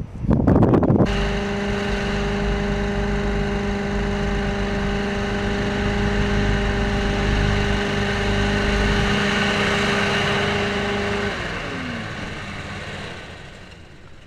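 Hovercraft engine and fan running at a steady pitch, a drone with a whine over a rush of air. About eleven seconds in it powers down: the whine slides down in pitch and the sound fades out.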